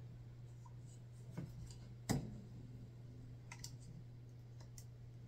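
Faint handling noise from fitting a USB-C cable plug into the base of a USB condenser microphone on a boom arm: a few light clicks and taps, the sharpest about two seconds in. A steady low hum runs underneath.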